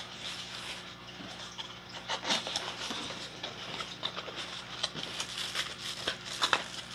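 Cardboard box and packaging being handled: irregular rustling, crinkling and tapping as flaps and tabs are pulled, over a steady low hum.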